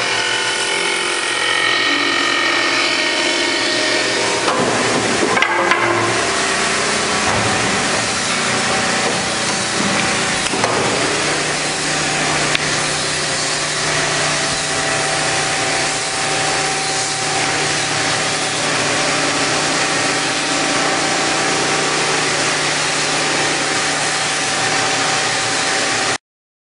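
Chiun Fong CBL-1150H automatic hydraulic back-knife wood-turning lathe cutting a spinning wooden spindle, a loud, steady noise of knives on wood. A few knocks come about five seconds in, then a steadier machine hum carries on until the sound cuts off suddenly near the end.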